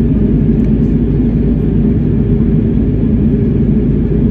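Steady airliner cabin noise in flight: a constant deep rumble of engines and airflow, heard from a window seat.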